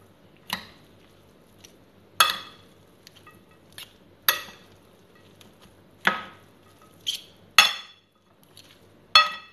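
Utensils clinking against a glass mixing bowl while noodles and vegetables are tossed together, about seven separate clinks at uneven intervals, each ringing briefly.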